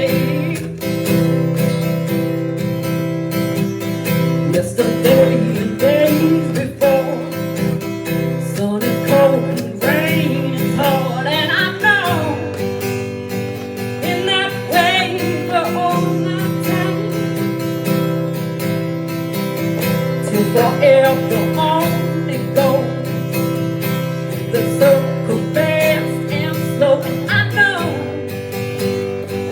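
Music: an instrumental passage of a song, with acoustic guitar strumming steady chords and a wavering melodic line over them.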